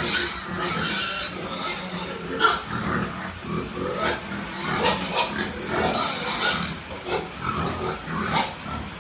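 A group of hungry piglets squealing and grunting over one another, with sharper louder squeals at about two and a half seconds and near the end.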